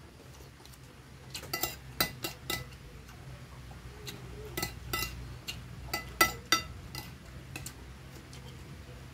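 Cutlery clinking and scraping against a ceramic plate while eating rice: about a dozen sharp clinks, some ringing briefly, in two clusters, the loudest about six seconds in.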